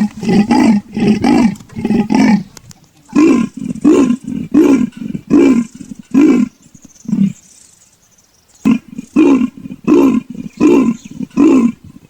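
Leopard's sawing call: three runs of rasping, evenly spaced grunts, about two a second, with short pauses between the runs.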